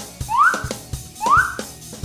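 Background music: two quick rising whistle glides about a second apart, over light drum hits.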